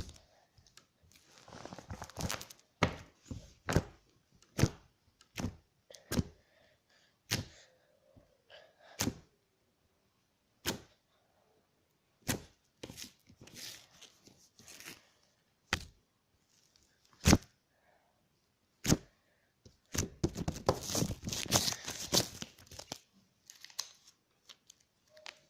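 Squishy putty being stretched and pressed so that it pops: sharp single snaps every second or so, then a dense run of crackling pops about twenty seconds in.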